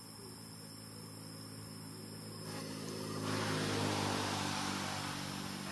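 A motor engine running steadily with a low hum, growing louder about halfway through and then easing off a little.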